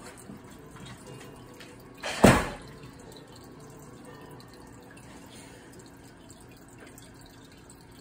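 A faint steady hum and hiss, broken about two seconds in by one loud, short burst of noise that dies away within half a second.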